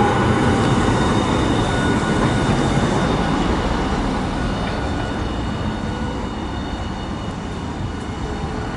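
Hiroshima Electric Railway 1000-series low-floor articulated tram running along street track past road traffic, its rumble mixed with passing cars and growing gradually quieter as it moves off.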